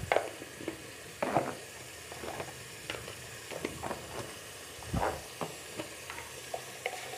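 Wooden spoon stirring and scraping a tomato-chilli masala in an aluminium pot, in short irregular strokes over a faint sizzle of the masala frying in oil.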